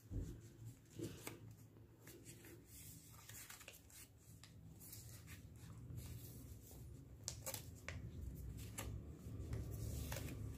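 Faint rustling and crinkling of a sheet of origami paper being folded by hand and its creases pressed flat, in small scattered clicks, with a low hum underneath.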